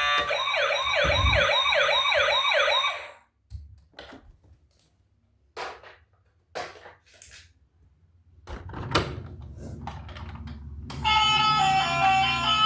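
Electronic siren wailing in quick up-and-down sweeps, about two and a half a second, cutting off about three seconds in. Then scattered clicks and taps, and music with a plucked tune starting near the end.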